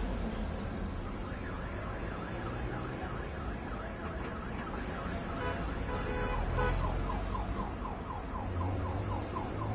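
Car alarm sounding over the low rumble of queued traffic, cycling through its patterns: a fast warble, then from about halfway a rapid run of short chirps.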